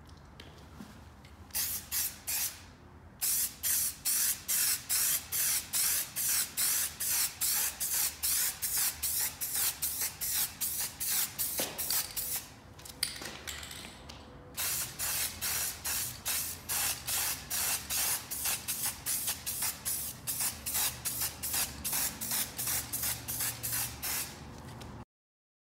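An aerosol spray can of high-gloss black lacquer paint hissing in quick, even bursts, about two or three a second, with a pause of a couple of seconds about halfway through.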